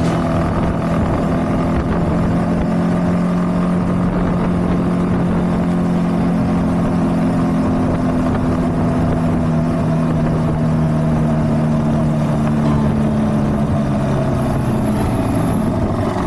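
Honda CB190R motorcycle's single-cylinder engine running at a steady cruise, its pitch easing down slightly near the end.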